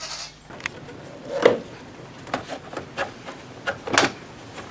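Irregular clicks, taps and rubbing of parts being handled during under-bonnet checks, with two louder knocks about one and a half and four seconds in.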